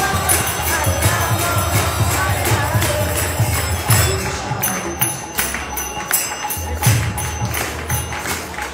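Kirtan music: small hand cymbals clashing in a steady rhythm over mridanga drum beats and a harmonium drone, with voices singing through the first few seconds.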